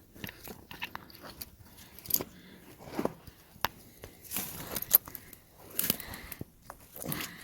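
Scattered rustling, scraping and crackling handling noise with a few sharp clicks and knocks, as of winch gear being handled and moved about.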